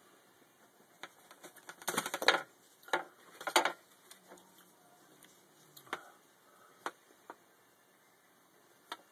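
Scattered clicks, taps and small rattles of a LiPo battery and its balance-plug lead being handled and connected to a hobby charger. The busiest clusters come about two and three and a half seconds in, followed by a few single ticks.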